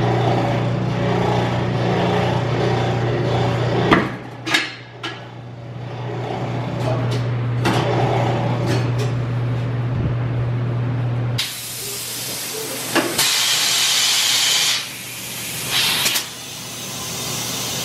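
A steady motor hum with a few sharp clanks as a tire is worked onto a wheel on a Coats tire changer. Then, about eleven seconds in, a loud hiss of compressed air from the inflation hose filling the stretched tire, broken twice by short pauses.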